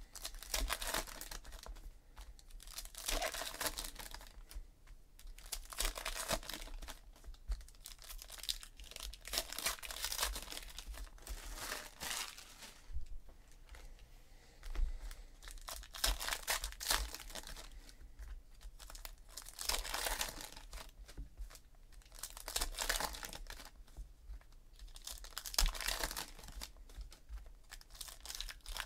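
Orange wrappers of Panini Classics football card packs being torn open and crinkled by hand in repeated bursts every few seconds, with the pulled cards handled and flipped through between packs.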